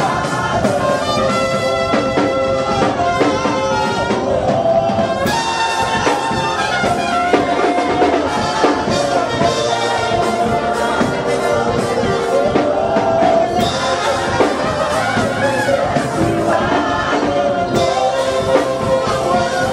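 Live gospel praise music: a church band playing with a brass-like lead and a congregation singing along, loud and unbroken.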